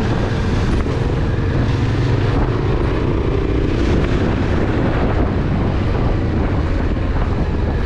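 Yamaha Ténéré 700's parallel-twin engine running steadily under way on a rough gravel track, with a constant rush of wind over the camera.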